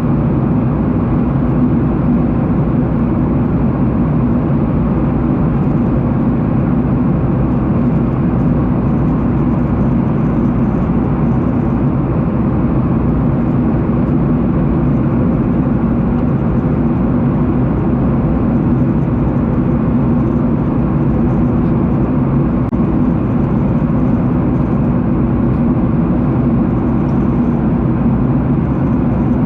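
Steady, loud noise of a jet airliner heard from inside the passenger cabin: a constant low rumble of engines and airflow with a faint steady hum, unchanging throughout.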